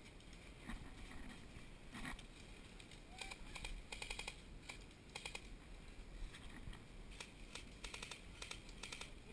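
Airsoft guns firing several short bursts of rapid, sharp clicks, beginning about three seconds in.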